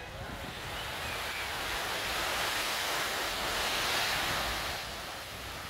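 A sea wave washing up onto the beach: a hiss of water that swells, peaks past the middle and falls away near the end.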